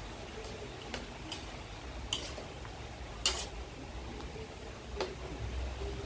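A metal slotted spatula clicking and scraping against a wok as it turns pork rinds deep-frying in hot oil, over a faint steady hiss of frying. There are several sharp clicks, the loudest about three seconds in.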